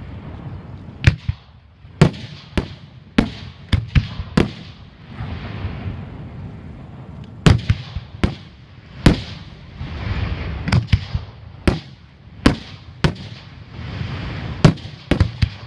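Aerial fireworks shells bursting: about twenty sharp bangs in irregular clusters, with a pause of a couple of seconds around the middle, over a steady background of noise from the display.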